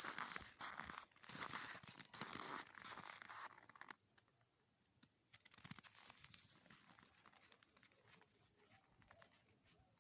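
Footsteps crunching and creaking in dry, frozen snow: several loud crunching steps, then fainter, scattered crunches from about four seconds in.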